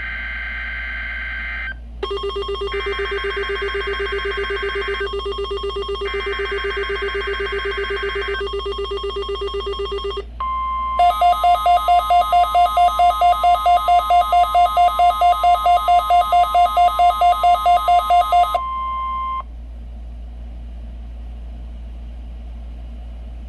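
NOAA Weather Radio test alert coming through weather radio receivers. First come the warbling digital SAME header bursts over a steady electronic buzz. Then, from about 11 s, the steady 1050 Hz warning alarm tone sounds for about eight seconds with fast pulsing alert beeps over it, about four a second. A quieter hiss follows.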